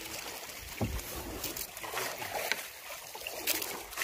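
Sea water lapping and sloshing against a small wooden outrigger fishing boat, with wind on the microphone and a low knock about a second in.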